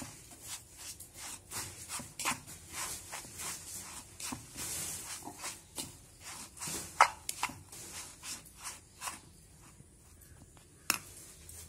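Metal spoon stirring and scraping dry semolina and grated potato around a plastic bowl, in repeated short strokes about two a second that ease off near the end, followed by one sharp tap.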